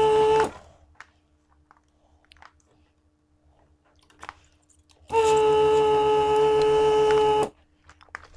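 The vacuum pump of a Weller WR 3M rework station runs with a steady buzz while the desoldering gun's trigger is held, sucking molten solder off a through-hole joint. It cuts off about half a second in, then runs again for about two and a half seconds from about 5 s in. Small clicks of handling sound in between.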